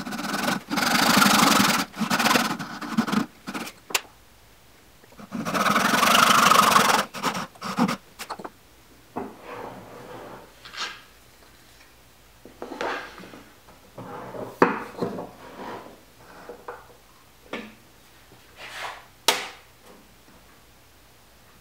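Japanese pull saw cutting dovetail pins in wood against a magnetic saw guide. Two stretches of fast sawing strokes come first, then shorter, quieter strokes with a few sharp clicks.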